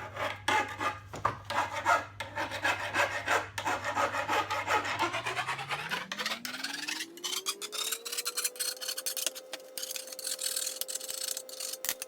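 Hacksaw cutting through a roof-rack crossbar in rapid, steady back-and-forth strokes, a rasping, scraping sound.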